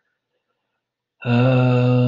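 A moment of near silence, then about a second in a man's voice holds a long, level hesitation sound at one low pitch, a drawn-out filler hum.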